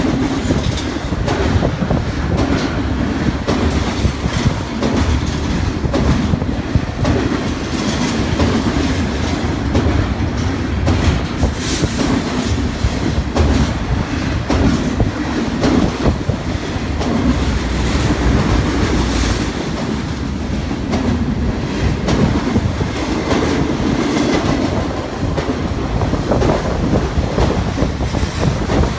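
BNSF intermodal freight train, double-stack container and trailer cars, rolling past close by: a loud, steady rumble of steel wheels on rail, with repeated clatter and knocks as the wheels cross rail joints.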